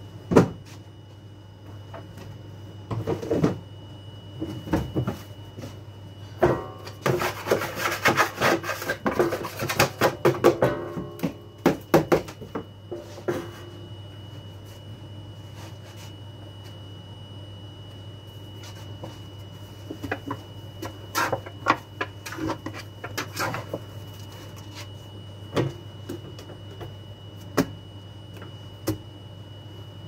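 A dough scraper knocking and scraping against a plastic dough tub in irregular clusters as dough is cut and handled, over a steady low hum.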